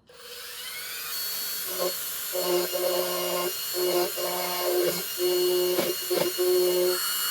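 Dremel rotary tool spinning up with a steady high whine, with a thin bit in it. For several seconds a lower buzz comes and goes over the whine, in short repeated stretches, as the bit is pressed against the camera's metal parts.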